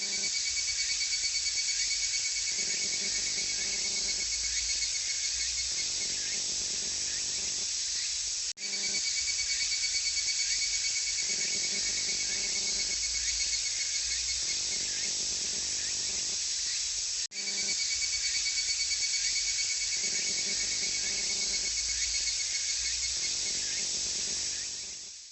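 Higurashi (evening cicada, Tanna japonensis) calling: a continuous, high-pitched shrill trilling that drops out for an instant twice.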